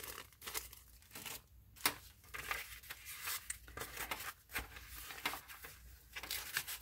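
Paper rustling and crinkling as a handmade junk journal's pages, a small paper bag and envelope pockets are handled and turned, in a string of short, light rustles.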